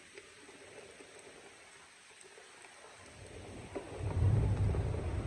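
Rain falling steadily on leafy trees, then a low rumble of thunder that builds about three seconds in and is loudest near the end.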